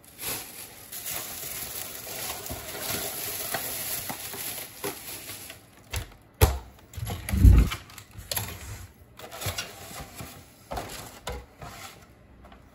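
Eating: a steady crackling haze with many small clicks, broken by a sharp knock about six and a half seconds in and a louder low thump about a second later.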